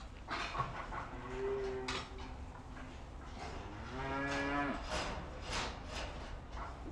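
Holstein dairy cows mooing: a faint low call about a second in, then a louder, longer moo about four seconds in. Short sharp knocks are heard between the calls.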